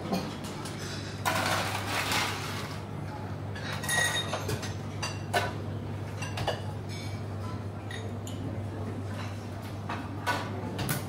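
Buffet-area ambience: scattered clinks and knocks of crockery and cutlery, with a longer clatter between about one and three seconds in, over a steady low hum.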